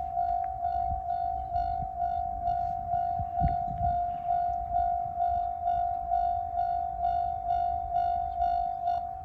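Japanese railway level-crossing warning bell ringing steadily, an electronic two-tone 'kan-kan' repeating about twice a second, over a low rumble.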